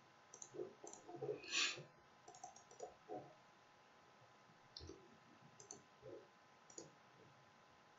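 Faint computer mouse clicks and small desk knocks, scattered irregularly, with the loudest click about a second and a half in.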